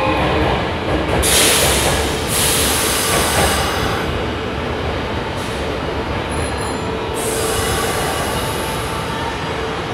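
Electric trains running through an underground station: the Hankyu 1000 series pulling out, then a Sanyo 3000 series train pulling in on the near track. Under a steady rumble of wheels there are stretches of high hiss and wheel squeal about a second in and again around five to seven seconds. A steady motor tone comes in near the end.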